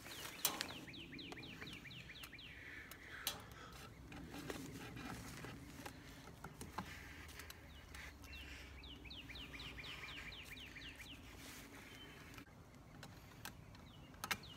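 A songbird singing twice, each song a quick run of repeated down-slurred notes at about seven a second, over faint clicks of fence wire being twisted by hand.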